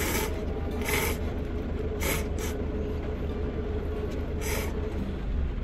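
A person slurping instant udon noodles from a cup, five short slurps, over a steady low hum.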